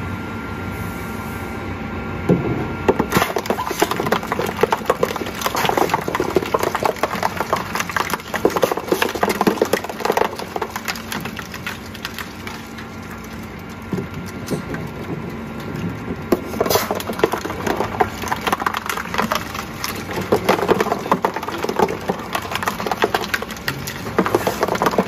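Two-shaft industrial shredder running, its hooked cutter blades crunching and cracking plastic items over the hum of its motor and gearbox. It turns empty for about the first three seconds, then cracks densely in two spells, easing off in the middle.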